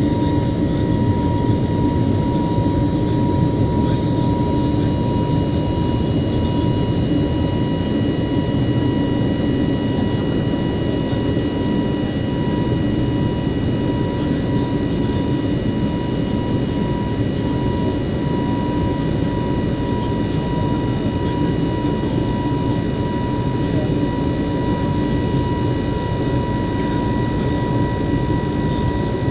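Steady cabin noise of an Airbus A320neo climbing after takeoff: the roar of its CFM LEAP-1A turbofan engines at climb thrust and the rushing air, with a steady high whine held over it.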